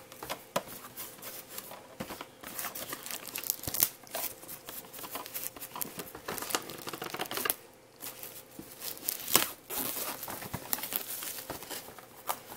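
Plastic shrink-wrap being torn and crinkled off a boxed Blu-ray set: irregular crackling with a few sharper rips.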